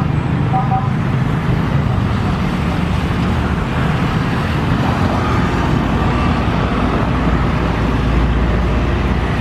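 Road traffic: cars and motorcycles passing along a two-lane road, a steady mix of engine and tyre noise, with the low rumble swelling near the end as vehicles pass close by.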